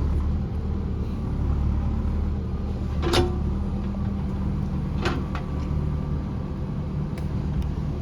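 Backhoe loader's diesel engine running steadily, with two sharp metallic clanks about three and five seconds in.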